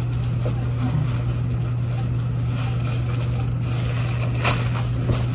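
Steady low machine hum, like a motor or fan running, with one sharp click about four and a half seconds in.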